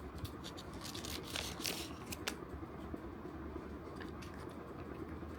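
Blind-box packaging being torn and crinkled open by hand, a quick run of tearing and rustling strokes in the first two seconds, then softer handling with a few faint clicks.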